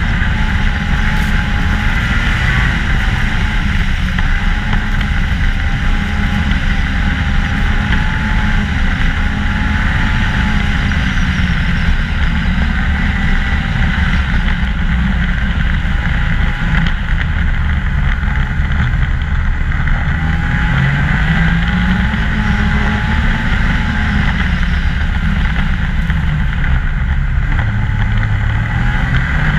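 Ski-Doo MXZ 600 snowmobile engine running at trail speed, its pitch wavering with the throttle and climbing a little about two-thirds of the way through, over a steady rush of noise.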